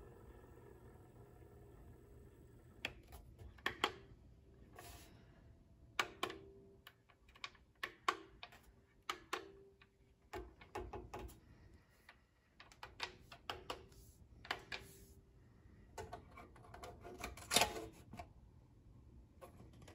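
Irregular clicks of the push buttons on a vintage Sony STR-S5 receiver's front panel being pressed one after another, some followed by a brief faint tone, over a low steady hum.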